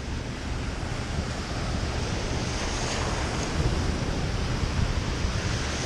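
Wind buffeting the microphone over the wash of a passing boat's wake rolling in against a kayak.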